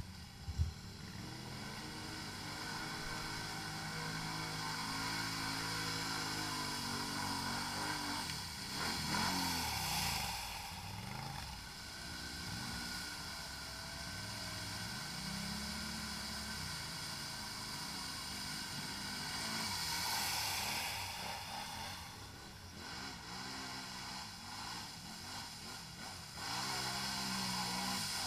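ATV engine revving up and down again and again, with stronger surges about nine seconds in and again around twenty seconds.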